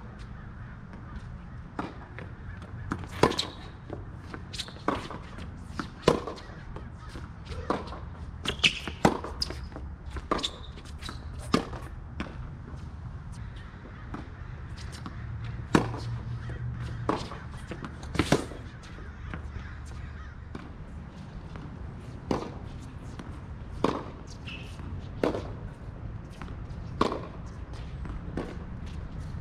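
Tennis balls struck by rackets and bouncing on an outdoor hard court during a baseline rally: sharp pops every second or so, some loud and close, others fainter from the far end of the court.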